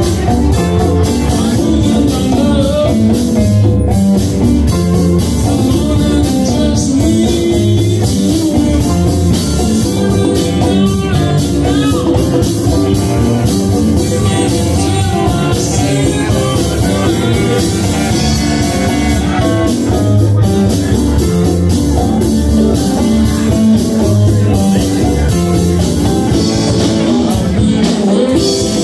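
Live rock-and-blues band playing: electric guitars, drum kit and congas with a singer, a steady beat throughout.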